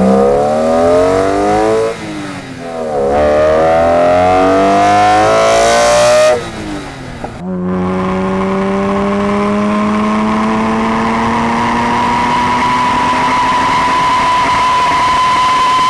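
BMW E46 M3's S54 naturally aspirated inline-six, with an aftermarket intake and muffler, revving up hard through a gear, dropping in pitch at an upshift about two seconds in and pulling again for about four seconds before lifting off. About seven seconds in the engine comes back in with a long, slow, steady climb in pitch.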